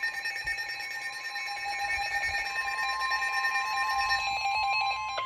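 Several weather alert radios sounding their alarms together: a mix of steady and pulsing beeps at different pitches, some cutting out about four seconds in. About two and a half seconds in, the steady 1050 Hz NOAA Weather Radio warning alarm tone comes in and holds. That tone signals that a broadcast warning is about to be read.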